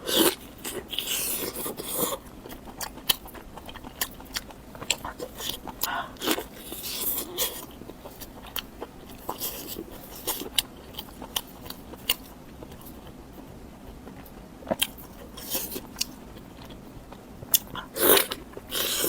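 Close-miked eating of long strips of pork belly: biting and chewing with irregular wet mouth clicks and short smacking bursts, a little louder near the start and again near the end.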